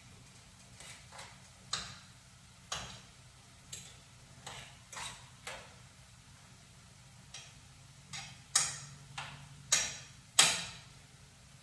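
A cooking utensil knocking and tapping against cookware at uneven intervals, about fifteen sharp knocks, the loudest ones near the end.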